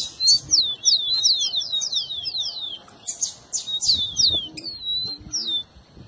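Rufous-collared sparrow (tico-tico) singing: quick runs of high, downslurred whistled notes, a long run and then a shorter one, with a single whistle near the end.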